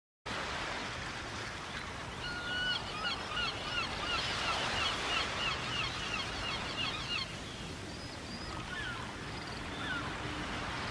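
Gull calling: a quick run of short, high, yelping notes, about four a second, from about two seconds in to about seven seconds in, then a few scattered single calls, over a steady background rush.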